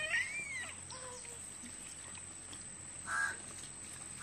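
Crow cawing: two short caws about a second apart near the end, with a gliding call fading out at the start.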